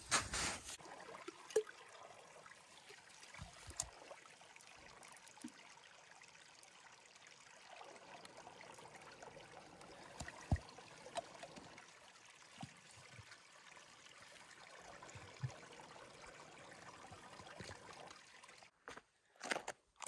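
A small trickle of water running steadily while a plastic water bottle is held under it to fill. Crunching footsteps are heard briefly at the very start and again near the end.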